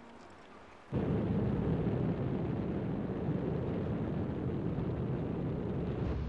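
Piston engines of four-engine propeller bombers in flight: a steady low engine drone that starts suddenly about a second in.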